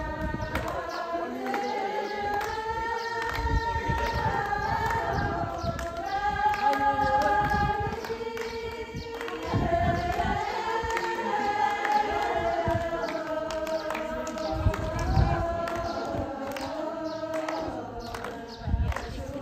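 A group of voices singing a folk song together for a circle dance, holding long, drawn-out notes that slide between pitches. Irregular thuds from the dancers' steps run underneath.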